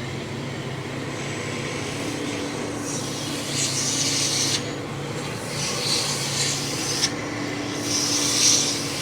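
Truck engine running at low revs, with repeated rasping hiss in three stretches of a second or so each.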